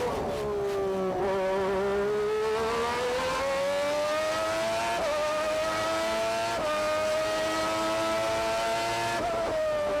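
Onboard sound of a McLaren MP4/6B Formula One car's Honda V12 at racing speed. The engine note drops sharply in the first second, as when braking and shifting down, then climbs steadily as the car pulls out, with brief steps at gear changes about five and six and a half seconds in, and falls again near the end.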